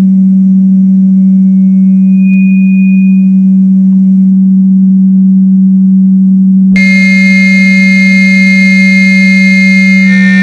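Loud, steady, low electronic sine-tone drone. A faint high tone sounds briefly about two seconds in. About seven seconds in, a click brings in a dense cluster of high electronic tones layered over the drone.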